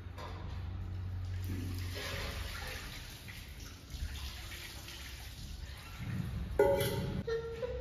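Water poured from a steel lota splashing onto a stone Shiva lingam, then a sharp clank near the end.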